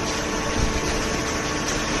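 Automatic hydraulic cardboard baler running: a steady machine hum from its hydraulic pump and motor over broad mechanical noise, with one brief low thump about a third of the way in.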